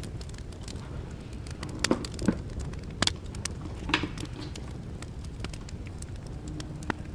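Close-up handling of a new phone and its cardboard box: a few sharp clicks and taps and light crackling as fingers work the coiled charging cable out of the box's paper tray, over a steady low background hum.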